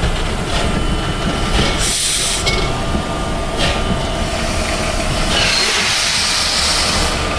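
Steam locomotive SŽ 33-037, a 2-10-0 of the German wartime class 52 type, with a steady low rumble. Steam hisses about two seconds in and briefly again near four seconds, then a longer, louder hiss of steam escaping low by the wheels runs from about five seconds on.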